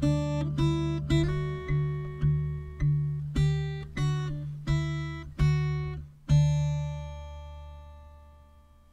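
Acoustic guitar music: a steady run of chords struck about one every half second, ending on a last chord about six seconds in that rings out and slowly fades.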